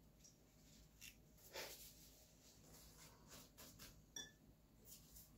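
Near silence with faint kitchen handling sounds: soft rustles and light clicks as phyllo dough sheets are laid down and a pastry brush dips into a bowl of melted butter, with a short squeak about four seconds in.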